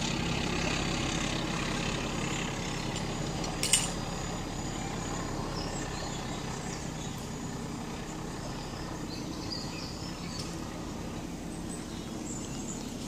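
Class 14 diesel-hydraulic locomotive's Paxman engine fading into the distance, a low steady drone growing slowly quieter. One sharp click about four seconds in.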